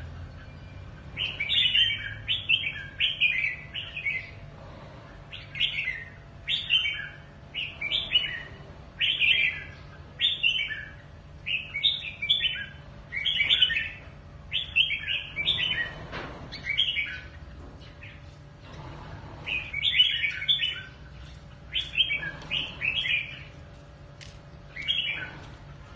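Red-whiskered bulbul singing: short, bright warbling phrases repeated again and again, with a few pauses of a second or two, over a faint low hum.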